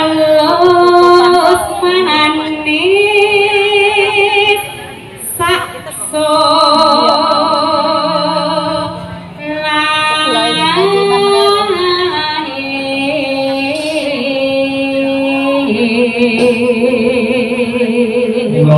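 Female vocalist (pesinden) singing long held notes that waver and slide between pitches, breaking off briefly twice.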